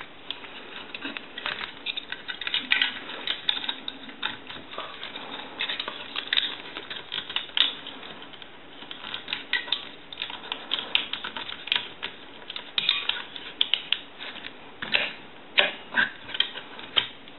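Irregular light clicks and taps of a small cover being handled and fitted over the hook switch of a Western Electric 500 rotary telephone, snapping into place.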